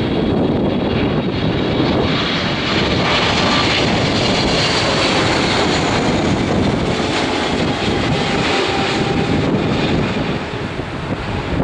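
Boeing 777 airliner's turbofan engines: a loud, steady jet noise that swells sharply at the start and eases a little near the end, with a faint steady whine over it.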